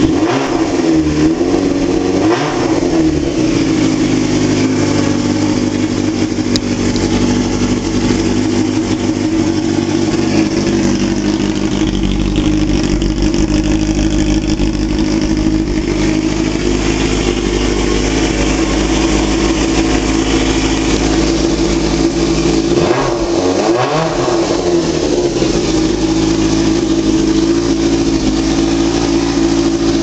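1999 Yamaha YZF-R6's 600cc inline-four engine idling steadily, with its revs rising and falling twice, once about two seconds in and again about twenty-three seconds in.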